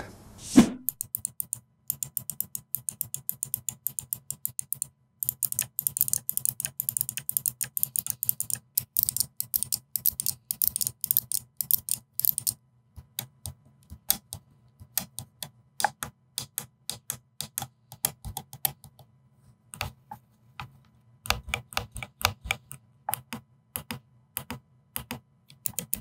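Buttons on an Azeron 3D-printed claw keypad being pressed. The clicky keys, which the reviewer thinks use mouse-style switches, click sharply, in fast runs for the first dozen seconds and then as slower, scattered presses.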